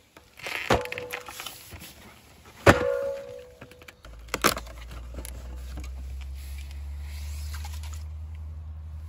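Cardboard cases of aluminium drink cans set down on asphalt: two heavy thuds, each with a short metallic ring from the cans inside, then a sharp knock as a case is handled. A steady low hum starts about four seconds in.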